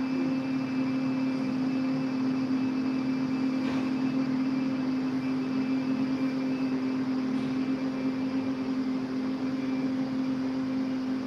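A group humming the bhramari pranayama (bee breath), a closed-mouth "Om" held as one long, steady, low drone. Several voices hum at slightly different pitches.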